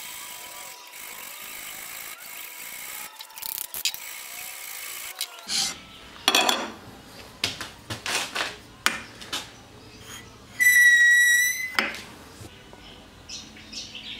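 Hand tool strokes on mild steel bars clamped in a bench vise, a run of irregular scraping passes of a file. About two-thirds of the way in, a loud high-pitched squeal of metal on metal is held for about a second, the loudest sound here.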